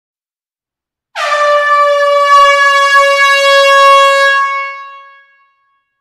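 A loud horn sounding one long, steady blast on a single note, starting about a second in and fading away over its last second.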